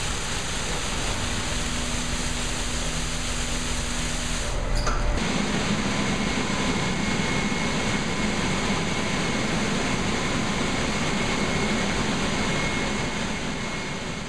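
Touchless automatic car wash machine working on a truck: a steady hiss of water spray for the first few seconds, then, after a short break about five seconds in, a steady mechanical running noise with a faint high whine. It fades out near the end.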